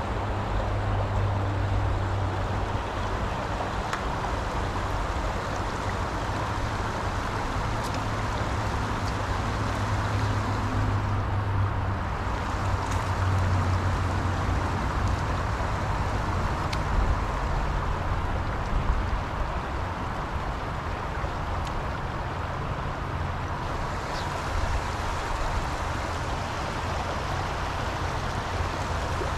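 Steady rush of flowing stream water, with a constant low rumble beneath it.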